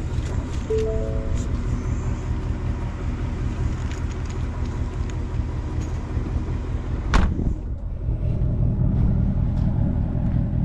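Car idling with a steady low rumble, a few short musical notes near the start, and a single sharp knock about seven seconds in.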